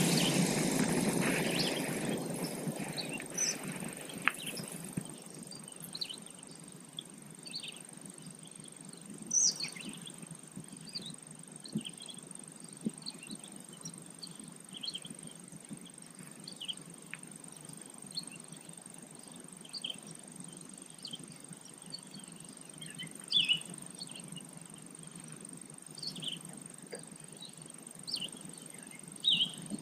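Outdoor dawn ambience of birds chirping, short scattered calls throughout, over a steady thin high-pitched tone like an insect. A louder rushing noise fades out over the first few seconds.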